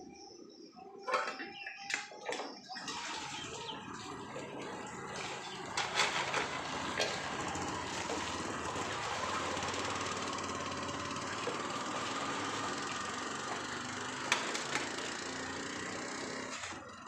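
Dishes clinking a few times, then a kitchen tap running steadily into the sink, cutting off shortly before the end.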